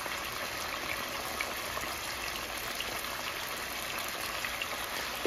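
Boneless chicken thighs sizzling in hot oil in a skillet: a steady hiss with a few faint crackles, and a single light knock at the very end.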